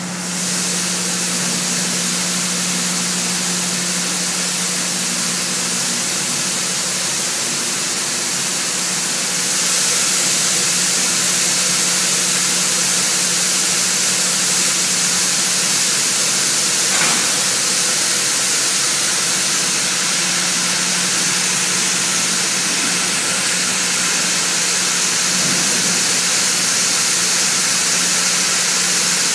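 Steady machinery hiss with a constant low hum inside a grain loadout building. The hiss grows louder about ten seconds in.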